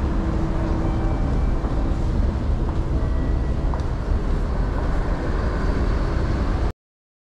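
Steady rumbling din of a busy railway station, heavy in the low range, with a few faint brief tones over it; it cuts off abruptly near the end.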